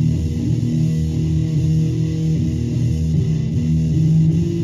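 Guitar music with held low notes, playing through a floor-standing loudspeaker in a wooden cabinet.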